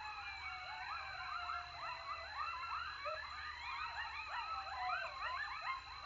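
A pack of coyotes yipping and howling together, many wavering calls overlapping, with quick rising-and-falling yips thickest in the middle. The uploader takes the chorus for coyotes calling as they eat after a successful hunt.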